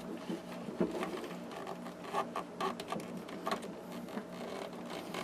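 Scattered light clicks and rattles of cables and plug connectors being handled and pushed into a wiring box, over a steady low hum.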